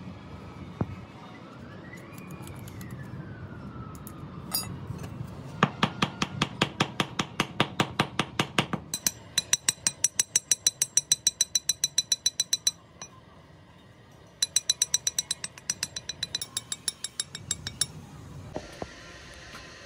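Rapid metal-on-metal tapping, about five strikes a second, in three runs of a few seconds each; the second and third runs ring brightly. A low steady hum runs underneath, and a faint whine rises and falls near the start.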